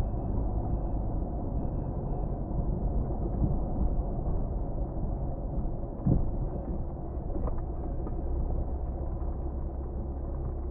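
A car being driven: steady engine and road rumble, with a single knock about six seconds in.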